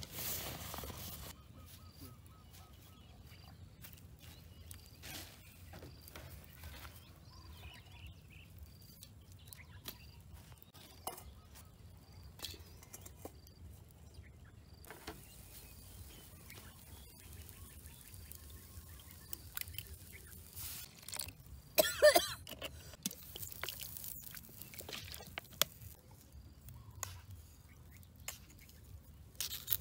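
Quiet rural outdoor ambience with faint high bird chirps. Through it come scattered light clicks and knocks as food, bowls and a cooking pot are handled. One brief louder noise comes a little past two-thirds of the way through.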